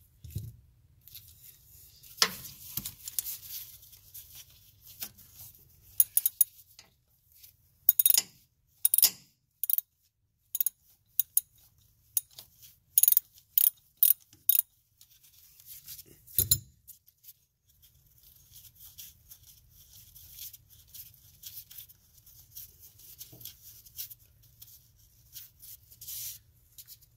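Hand ratchet wrench loosening a bolt on a hose clamp: short runs of sharp clicks with pauses between, and tool handling noise.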